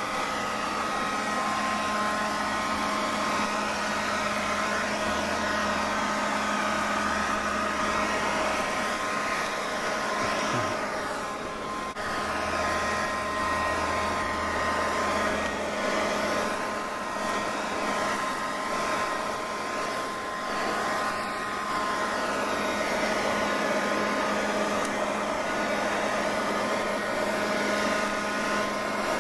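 Cordless 12-volt Werktough leaf blower running steadily: a constant electric motor and fan whine over rushing air.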